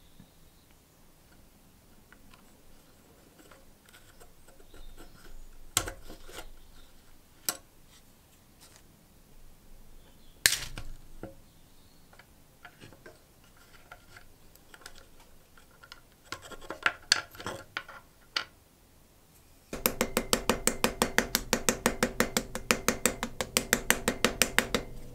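Small hammer peening a brass pin in a wooden straight razor handle: a fast, even run of light metal taps, about eight a second, starting near the end. Before that, scattered clicks and knocks of the razor, pin and cutters being handled on the bench.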